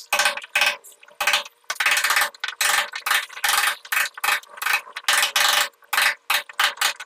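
Hammer striking a steel chisel against a masonry wall, chipping a channel to recess a water pipe: quick, repeated metallic strikes with a short ring, about three a second.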